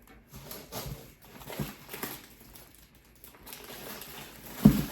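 Items and packaging being handled: light rustling with several soft knocks, and one louder knock near the end.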